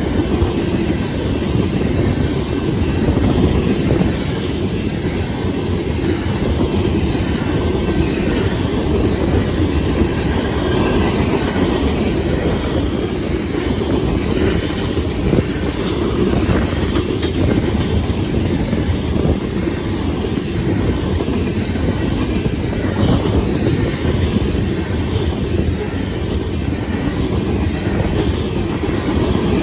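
Covered hopper cars of a freight grain train rolling past at trackside: a steady loud rumble of steel wheels on rail, with scattered faint clicks from the wheels.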